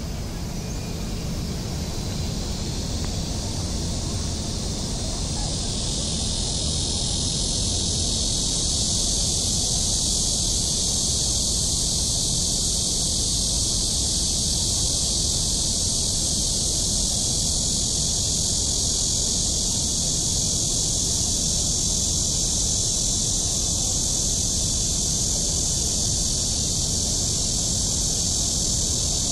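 Steady, high-pitched insect chorus that grows louder about five seconds in, over a constant low rumble.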